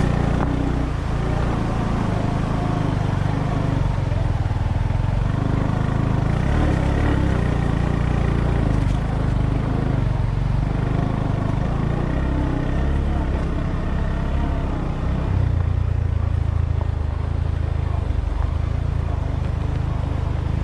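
Engine of an off-road vehicle running steadily under way, a low, continuous drone.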